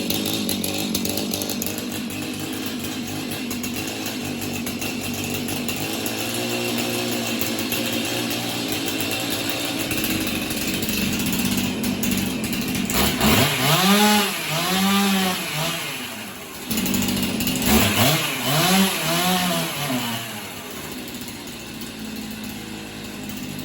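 Stihl MS 291 C two-stroke chainsaw running with its newly fitted muffler: it runs steadily at first, then is revved up and back down in a few quick throttle blips a little past halfway, and again in a second cluster a few seconds later, before dropping back to idle. It revs and returns cleanly, heard while the idle and low-speed mixture is being tuned.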